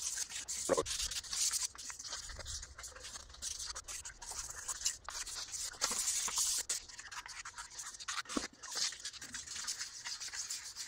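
Sandpaper (320 grit) rubbing over a wheel in irregular scratchy strokes, scuffing the clear coat down to a dull etch for new paint to bite into.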